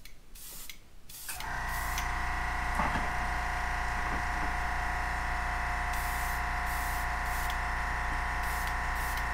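Airbrush compressor motor starting a little over a second in and running with a steady electric hum, as the tank refills after spraying. Short hisses of the Iwata HP-C airbrush spraying paint come at the start and several times later on.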